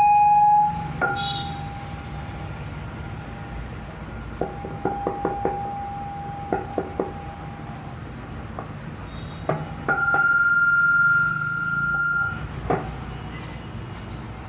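Acoustic feedback whistling from a small amplifier board's speaker and microphone kit: a short loud whistle at the start, a fainter one broken by several clicks in the middle, then a steady higher-pitched whistle for about two and a half seconds, over a constant low hum.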